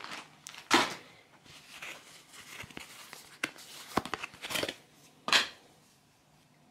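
Packaging rustling and crinkling as a baby bodysuit and its card insert are pulled out of the pack by hand, in a handful of short, sharp crackles, the loudest just under a second in and again about five seconds in.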